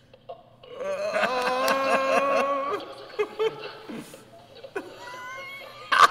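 Laughter: a long, pulsing laugh from about one to three seconds in, then louder laughing right at the end.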